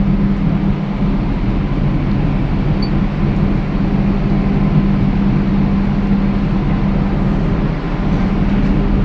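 An engine running steadily at constant speed, a level low hum over a rumble with no change in pitch.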